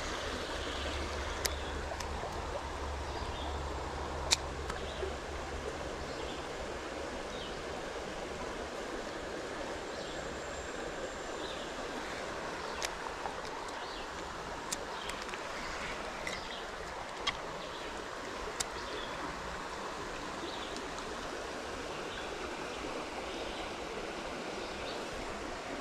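Shallow creek water running steadily over stones in a small riffle, with a few short sharp clicks now and then.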